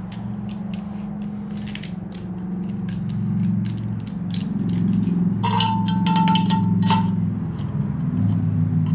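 Pipe expander being cranked open inside a steel exhaust pipe with a ratchet wrench: a run of irregular ratchet clicks as its threaded bolt is turned. About halfway through, a high metal squeal lasts roughly a second and a half as the expander's jaws bear on the pipe wall.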